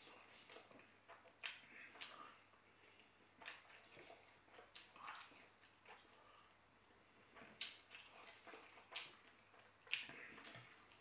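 Quiet, close-miked eating sounds: wet chewing and mouth smacks of a person eating chicken and rice, with soft clicks of a knife and fork against the plate at irregular moments.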